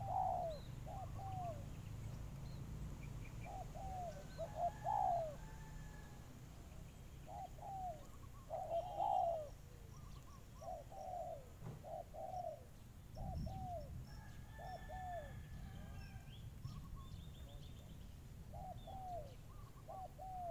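Spotted doves cooing: short phrases of a few falling coos, repeated every couple of seconds, with small birds chirping faintly.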